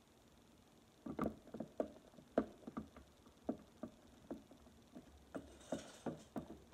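Slime mixture being stirred and worked in a clear plastic tub: a run of irregular short knocks and clicks, several a second, starting about a second in.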